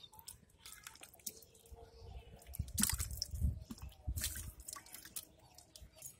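Water sloshing and mud squelching as a large fish wriggles through shallow muddy water and drops into a hole, loudest in the middle, with scattered small wet clicks and drips.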